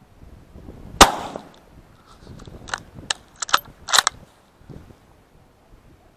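A single close gunshot about a second in, with a trailing echo, followed by a quick run of sharp clicks and knocks a couple of seconds later.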